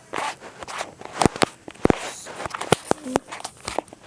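Objects being handled and set down: a quick, irregular run of sharp knocks and clatters with scraping and rustling between them.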